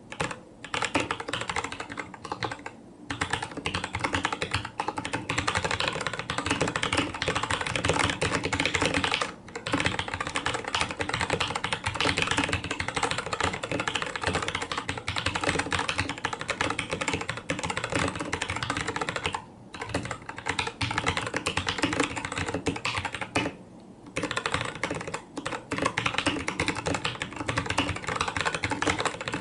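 Fast, continuous typing on a mechanical keyboard with Cherry MX Brown switches: a dense stream of key clacks, broken by a few short pauses.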